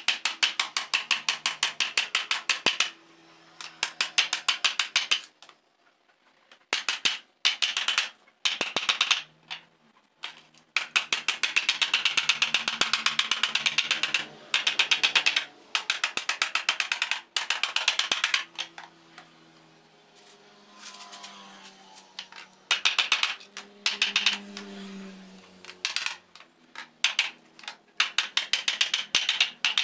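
Aviation snips cutting the thin steel of a motorcycle exhaust tube: runs of rapid, sharp metallic clicks, each lasting a few seconds, with short pauses between them.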